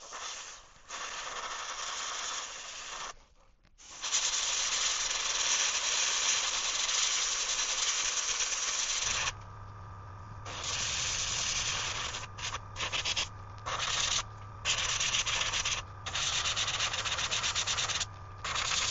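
Airbrush spraying paint: a hiss that comes in on-off stretches, one long pass and then several short bursts. About halfway through, a steady low hum starts underneath the spraying.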